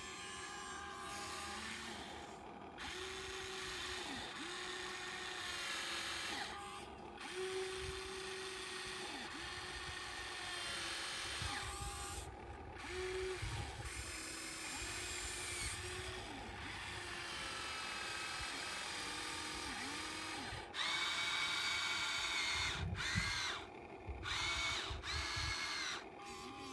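Radio-controlled model excavator's electric motors whining in stop-start runs, the pitch dipping and rising as each movement starts and stops. A louder, higher whine comes in several short runs near the end.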